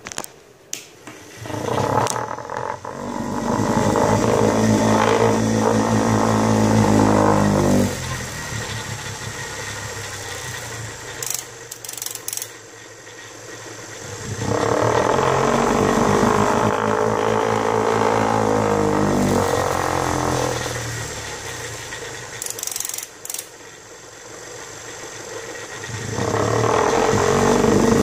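Small 12-volt DC motor spinning an aluminium brake disc on a steel shaft with a steady whir. It swells loud three times and drops back between, with a few sharp clicks about eleven seconds in and again near twenty-three seconds.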